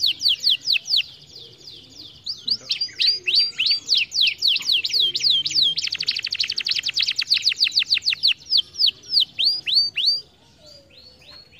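Domestic canary singing a run of quick downward-sweeping whistled notes. It pauses briefly about a second in, breaks into a fast dense trill a little past halfway, and stops near the end.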